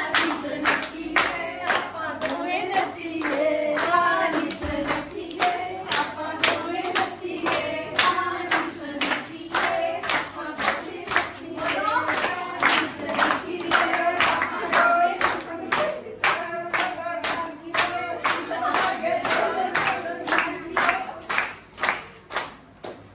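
A group singing a Punjabi folk song, clapping along in a steady beat of about two to three claps a second; singing and clapping stop just before the end.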